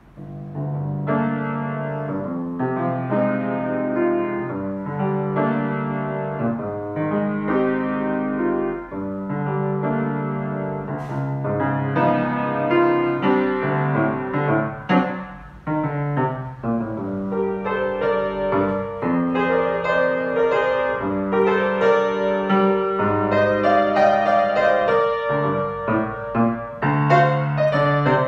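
Grand piano being played: chords and a melody over held bass notes, starting about a second in.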